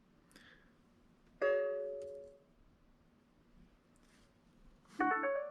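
Electronic start-up chimes: a single ding about a second and a half in that rings out for about a second, then a quick rising run of notes near the end.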